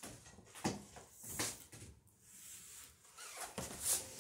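Stiff sailcloth and double-sided seam tape being handled, rustling and crinkling in several short bursts.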